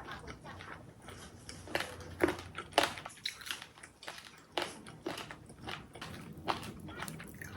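Close-up eating sounds: someone bites into crunchy food and chews, with a series of irregular sharp crunches.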